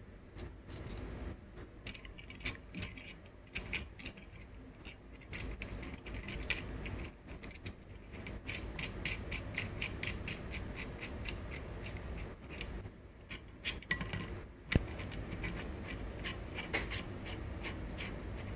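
Steel adapter of a crankshaft installer tool being screwed by hand onto the crank end of a two-stroke dirt-bike engine: runs of quick small metal clicks and scrapes, with one sharper click about three-quarters of the way through.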